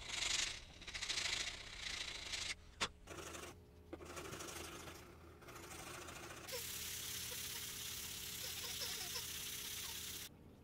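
Hand sanding of a maple letter opener blade on sandpaper: rasping back-and-forth strokes at first, becoming a steady scratchy hiss that cuts off suddenly near the end.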